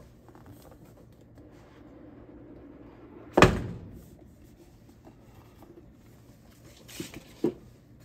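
A rigid cardboard product box being opened and handled. A single sharp thunk about three and a half seconds in, then a few light taps near the end.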